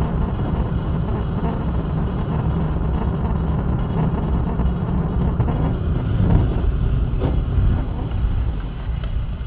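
Steady low rumble of a car's engine and tyres on the road, picked up inside the cabin while driving at highway speed.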